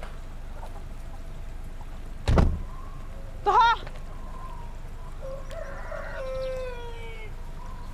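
Rooster crowing: a short wavering crow about three and a half seconds in, then a long, slowly falling crow from about five seconds in. A single loud thump comes a little after two seconds.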